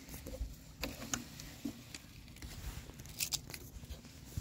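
Handling noise from a backpack leaf blower being turned over by hand: a few light clicks and knocks from its plastic frame, with some faint rustling.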